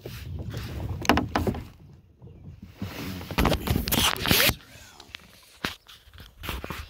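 Handling noise from a hand gripping and turning the phone on its mount: a few short knocks and clicks, and a longer rubbing scrape around the middle.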